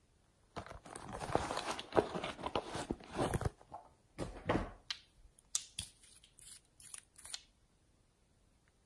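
Slime being squeezed and worked by hand: a dense run of crackling and crunching, then a string of separate sharp clicks and pops that stops about seven seconds in.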